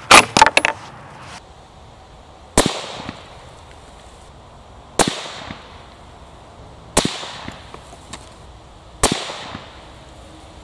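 Beretta BRX1 straight-pull rifle's bolt worked with a quick clatter of metal clicks, followed by four 6.5 Creedmoor rifle shots about two seconds apart, each trailing off briefly.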